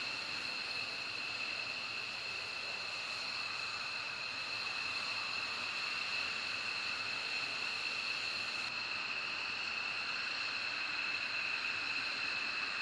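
F-15E Strike Eagle jet engines running at idle on the ground: a steady high-pitched whine made of two tones over a steady hiss.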